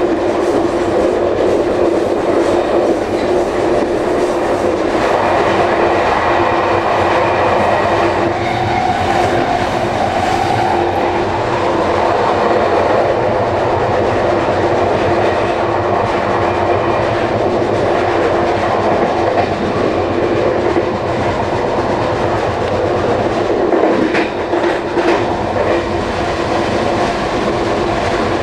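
Amtrak Northeast Corridor Regional train running at speed, heard from inside its rear car: a steady rumble of wheels on rail under a constant hum, with a short run of sharp wheel clicks over the track about three-quarters of the way through.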